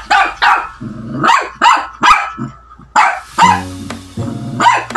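Shih Tzu barking repeatedly: about eight short, sharp barks in quick, irregular succession. Background music with sustained low notes plays underneath.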